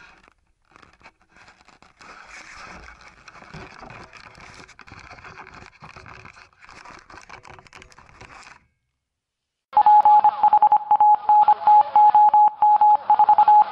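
Faint scratchy, clicking noise for about eight seconds, then, after a second of silence, a loud electronic beeping tone at one pitch, chopped on and off by many quick gaps.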